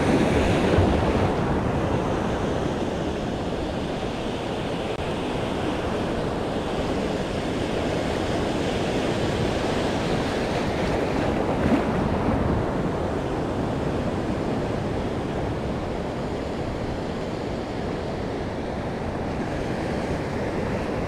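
Ocean surf washing in, a steady rush that swells and eases slowly, with wind on the microphone.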